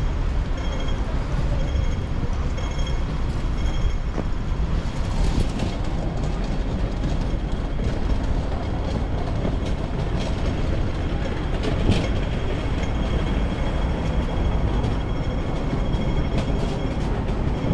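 City street traffic rumble, steady and heavy in the low end. During the first few seconds a pedestrian crossing signal beeps repeatedly, about one and a half beeps a second.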